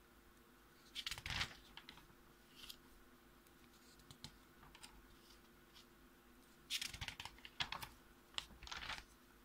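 Paper pages of a school notebook being turned by hand: short rustles and flaps of paper, one about a second in and a cluster of several near the end.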